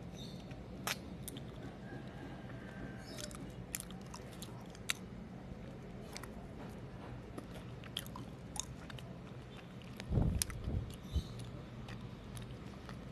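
Close-miked chewing of homemade mochi ice cream: soft sticky mouth clicks and smacks at irregular intervals, with a louder cluster of low thumps about ten seconds in, over a faint steady hum.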